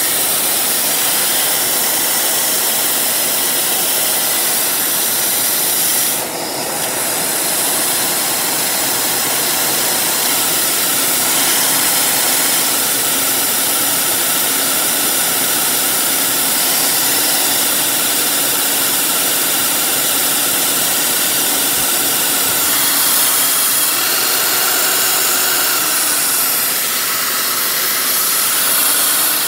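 Handheld vacuum cleaner running flat out, its suction driving a small Lego turbine engine: a loud, steady rush of air with a high whine. The sound dips briefly about six seconds in.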